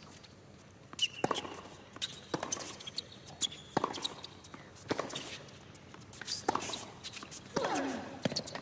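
Tennis rally on a hard court: sharp racket-on-ball hits and ball bounces in an uneven beat, about one every second or less, with a short shoe squeak about a second in and a player's grunt on a shot near the end.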